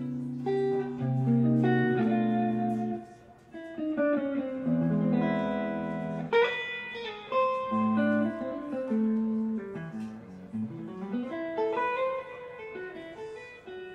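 Live jazz trio playing: electric guitar picking single-note lines and chords over bass, with a low note sliding down and back up about ten seconds in.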